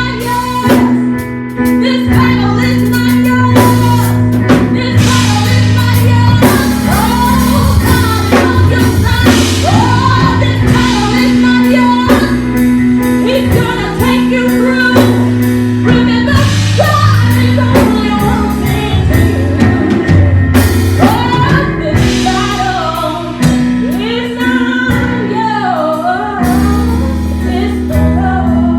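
Live gospel worship music: a singer leading a song over a band with drum kit and bass.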